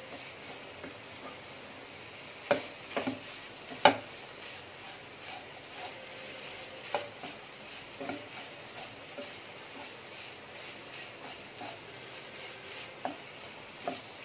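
Wooden spatula stirring and scraping a moist grated-coconut and jaggery filling in a pan on the heat, over a soft steady sizzle. Now and then the spatula knocks sharply against the pan, a quick cluster of knocks ending in the loudest one about four seconds in.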